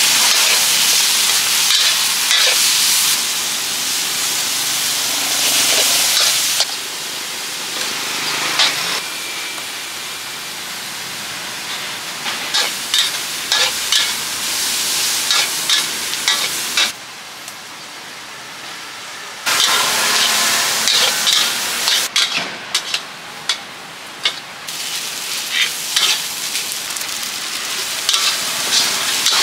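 Vegetables and fried rice sizzling in a steel wok over a gas burner, the sizzle loudest in the first few seconds. A metal spatula scrapes and clanks against the wok again and again as it is tossed.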